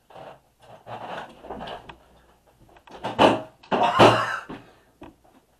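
Breathy gasps and forced exhalations from a person reacting to an extremely sour candy, in several bursts, the loudest two about three and four seconds in.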